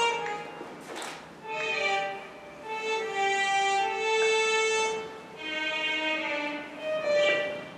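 A violin playing a slow melody in phrases of held notes, with brief pauses between the phrases.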